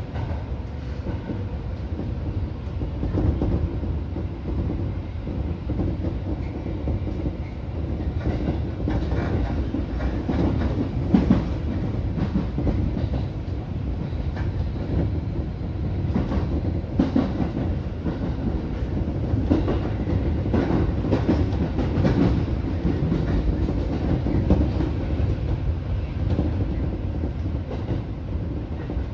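Seibu 2000-series electric train running along the track, heard from inside the driver's cab. A steady rumble is broken by irregular clacks as the wheels cross rail joints and points.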